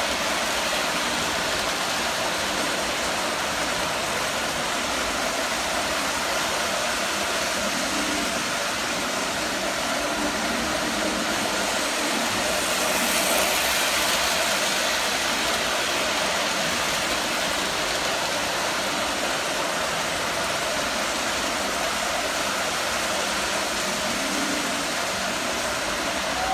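Lionel O gauge model trains running on three-rail track: a steady rolling, whirring noise of metal wheels and electric motors, growing a little louder about halfway through as a freight train passes close.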